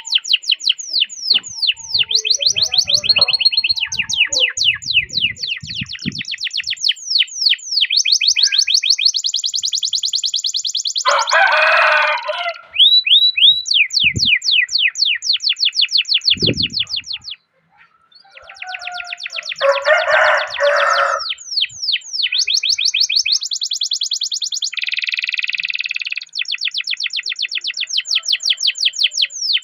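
Domestic canary singing long, rapid rolling trills: fast runs of repeated sweeping notes that change speed and pitch from phrase to phrase. Two harsher, rasping phrases break in, and the song stops for a moment about two-thirds of the way through.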